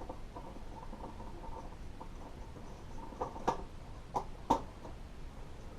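A small screw being turned out of a metal computer case with a screwdriver: faint scattered squeaks and ticks, then a few sharp clicks in the second half.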